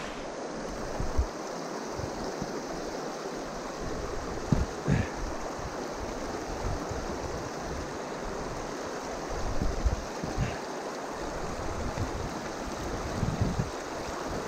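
Creek water rushing steadily, with a few short low thumps from footsteps or handling.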